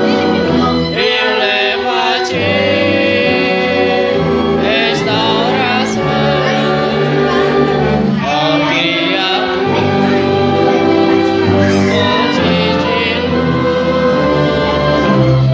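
A congregation singing a hymn together with instrumental accompaniment, sustained notes held in chords.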